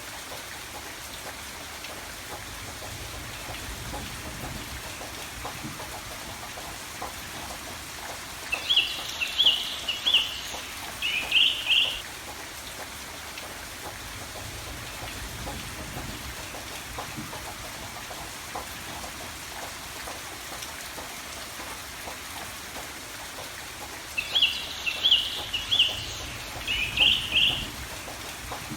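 Steady rain falling, with a small bird singing a quick run of high chirps twice: about nine seconds in and again near the end.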